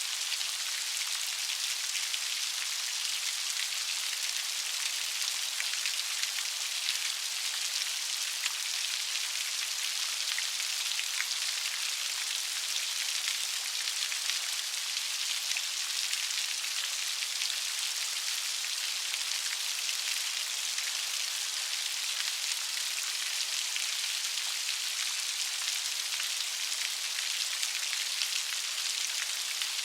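Steady light rain falling, an even patter of many small drops with no thunder.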